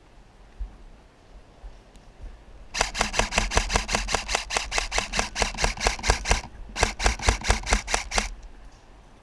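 Airsoft rifle firing in two rapid bursts, about six or seven sharp shots a second: a long burst of some three and a half seconds, a brief pause, then a shorter burst.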